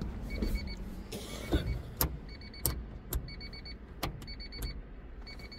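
Electronic warning chime of a Honda Life kei car, beeping in quick runs of three or four short beeps that repeat over and over. A few sharp clicks and a low steady rumble run underneath.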